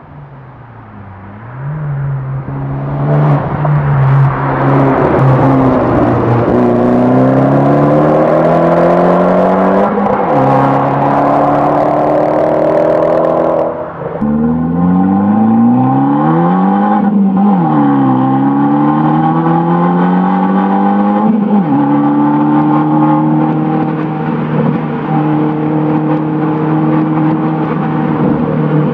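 Fiat 500 Abarth's turbocharged 1.4-litre four-cylinder engine and exhaust accelerating hard through the gears. The sound grows from faint to loud over the first few seconds. The engine note climbs, then drops back with each gear change, several times over, and settles into a steady drone for the last several seconds.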